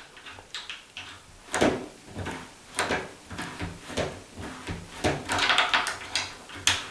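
Door handle being worked on a tubular door latch, the spring-loaded latch bolt clicking and clacking in and out, about a dozen sharp clicks, the strongest about a second and a half in.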